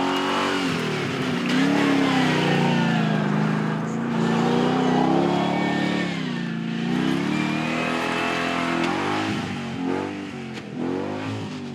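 Vehicle engine driven hard, its pitch climbing and dropping again and again as it is revved and shifted.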